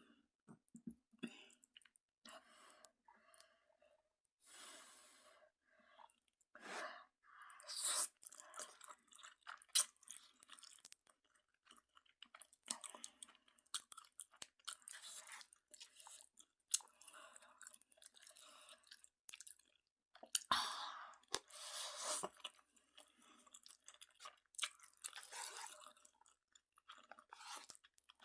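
A person eating Chapagetti noodles mixed with Buldak sauce, chewing in irregular bursts, fairly quiet.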